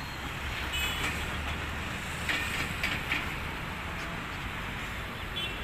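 Outdoor street noise: a steady hiss with a low traffic rumble in the first couple of seconds and a few brief clatters near the middle.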